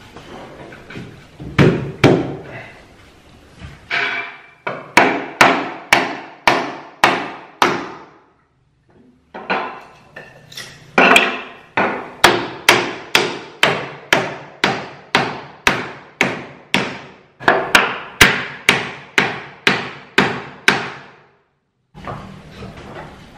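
Hammer blows on a thick wooden shelf, tapping it onto its hidden steel-rod supports in the wall: sharp knocks at about two a second, in several runs with short pauses between.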